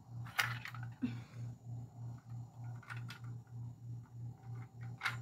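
A few sharp clicks and a rustle as a channel catfish is handled and hung on a hand scale. Under them runs a steady low hum that pulses about three times a second.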